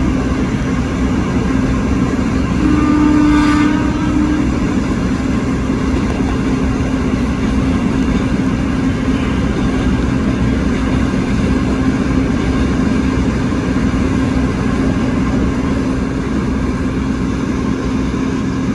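KRL electric commuter train approaching the station, its running noise and motor hum steady throughout. A short, pitched tone sounds once about three seconds in.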